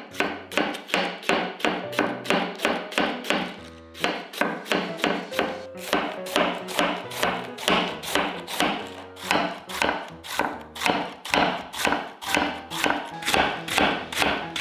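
Kitchen knife shredding cabbage on a bamboo cutting board: quick, even chops about four a second, each a crisp crunch through the leaves ending in a tap on the board, with a brief pause about four seconds in. Background music plays underneath.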